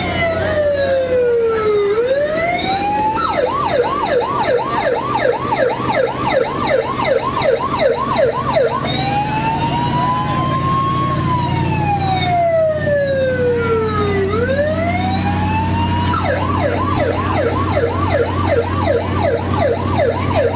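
Electronic siren on a passing old fire engine, switching between a slow wail that falls and rises over a few seconds and a fast yelp of about two to three sweeps a second. The yelp runs about three seconds in and again in the last few seconds. A steady low engine hum runs underneath.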